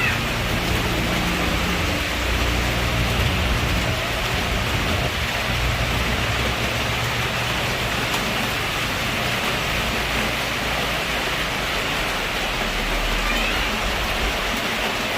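Heavy rain pouring steadily, with a low rumble underneath during the first few seconds and again near the end.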